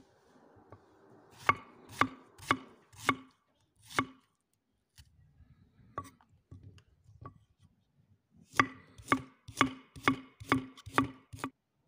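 Kitchen knife chopping vegetables on a wooden cutting board: five sharp knife strikes at about two a second, a pause with faint handling, then about seven more strikes near the end as a carrot is sliced into rounds.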